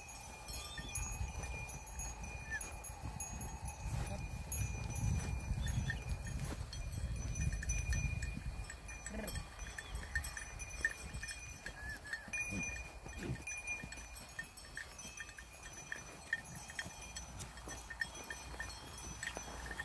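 A herd of goats on the move, a few of them bleating now and then, over a low rumble that is heaviest in the first half.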